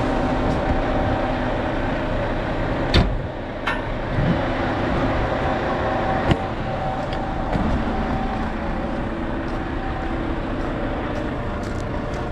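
Volvo A40 articulated dump truck's 13-litre diesel engine running steadily as the truck travels over a gravel road, with a few sharp knocks about three, four and six seconds in.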